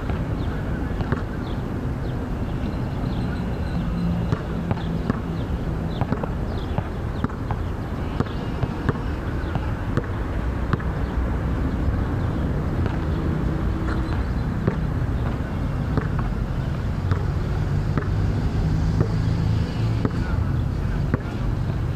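A steady low engine-like rumble, with a basketball bouncing and thudding on an outdoor court in irregular sharp knocks.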